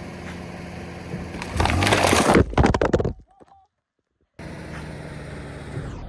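A car's tyre rolling over Coca-Cola drink containers with the engine running: a loud crunch about a second and a half in, followed by a quick run of sharp cracks. The sound then drops out for about a second before the engine noise returns.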